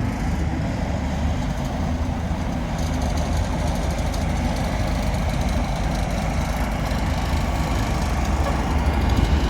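Bus engine running with a steady low rumble, getting a little louder near the end.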